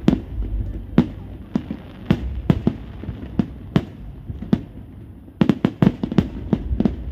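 Aerial fireworks shells bursting: a string of sharp bangs at irregular intervals over a low rumble, with a rapid cluster of several bangs a little after five seconds in.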